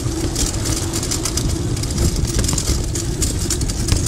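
Bicycle riding along a paving-slab pavement: continuous low rumble with a steady hum underneath, and frequent clicks and rattles as the bike jolts over the slabs.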